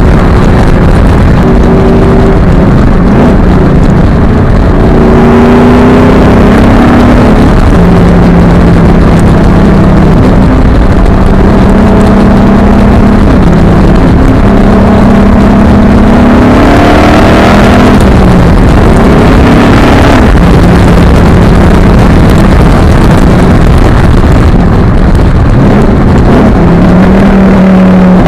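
2012 Ford Mustang Boss 302's 5.0-litre V8 heard right at a modified exhaust outlet while driving, with heavy wind noise. The engine note steps and glides up and down with throttle and gear changes, climbing sharply about seventeen seconds in before dropping back.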